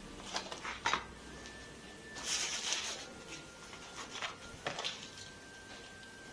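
Quiet kitchen handling sounds: a few light clicks and taps of utensils and a dish, with a brief scraping rustle about two seconds in.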